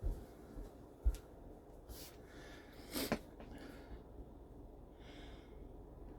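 A few faint knocks and rustles from handling the removed dashboard panel and its parts, with a short louder scuffing noise about three seconds in.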